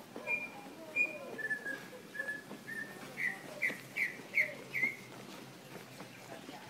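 A run of clear whistled notes: two high notes, three slightly lower level notes, then five quicker downslurred notes about two and a half a second, stopping about five seconds in.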